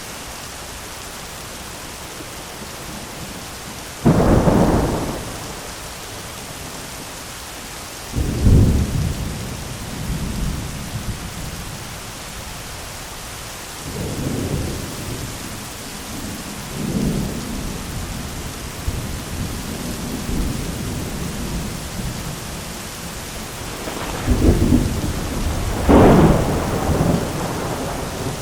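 Steady heavy rain pattering on an umbrella, with repeated thunder: a sudden loud clap about four seconds in, another a few seconds later, softer rolling rumbles in the middle, and two loud peals close together near the end.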